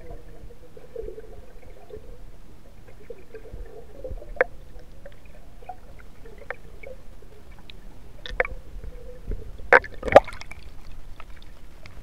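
Muffled underwater sound of river water heard through a submerged camera: a steady low wash with a faint wavering hum. A few sharp knocks break it, the loudest two close together near the end.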